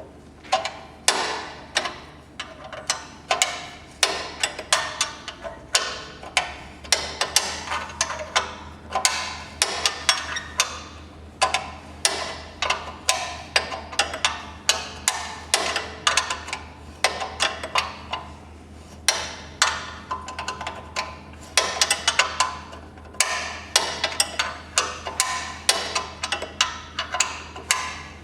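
Rapid, irregular run of sharp metallic clicks and knocks, several a second, each with a short ringing tail: hand tools working the skid plate's front mounting screws.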